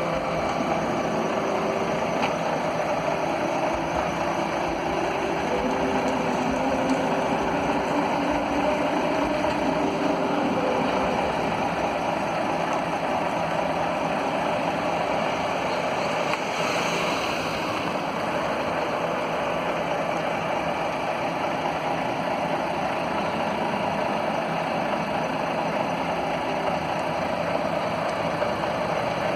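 Diesel engine of a Volvo B460R coach idling steadily, with a brief high hiss about two-thirds of the way through.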